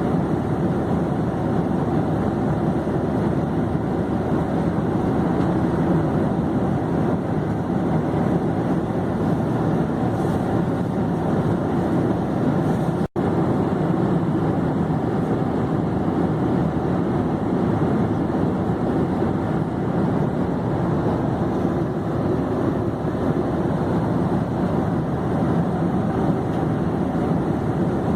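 Steady drone of an airplane in flight: an even rush of engine and air noise, deep and unchanging, broken once about halfway through by a split-second dropout.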